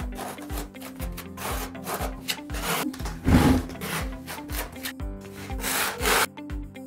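A trowel blade scraping thin-set mortar along a fibreglass-taped joint on cement board, in repeated strokes with the strongest about halfway through, pressing the mortar into the tape. Background music with a steady beat plays throughout.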